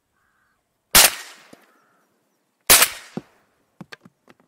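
Two shotgun shots from an MP-155 semi-automatic shotgun, about a second and three quarters apart, each ringing out across the open lake, followed by a few light knocks.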